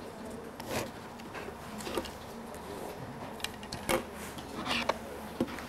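Dark cloth rustling and rubbing over a concealed camera's microphone, with irregular soft clicks and knocks over a low steady room hum.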